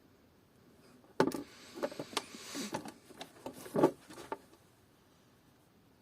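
Small tools and parts handled on a workbench: a flurry of clicks and knocks starting about a second in and lasting about three seconds.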